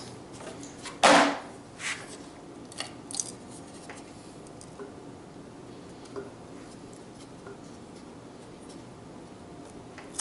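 A loud clatter about a second in, then a knock and scattered light clicks and taps of hands working at a lawn mower engine's metal cover.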